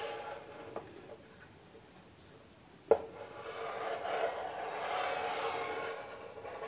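Chalk rasping across a chalkboard as a large wooden blackboard compass sweeps out a circle, for about three seconds in the second half. A sharp tap comes just before it.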